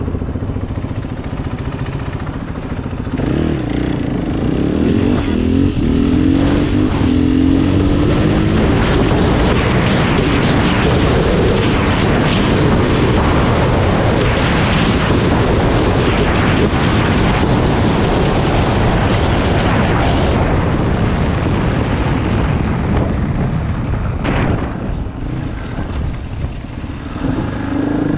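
KTM 500 EXC's single-cylinder four-stroke engine accelerating under way, its pitch climbing through the first several seconds, then carried at speed under a heavy steady rush of noise. It eases off and starts climbing again near the end.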